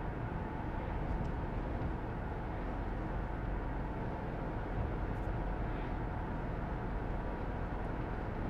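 Steady road and engine noise inside a moving high-top vehicle's cabin, heard as an even low rumble through a lapel microphone.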